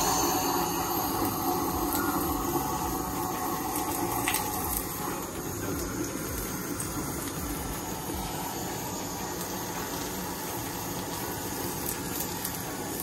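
Handheld butane blowtorch hissing steadily, its blue flame searing oxtail meat on a grill.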